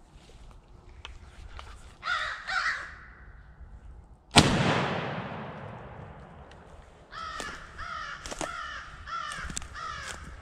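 Two crow caws, then a single shotgun shot about four seconds in that echoes and fades over a couple of seconds, followed by a run of about six more caws.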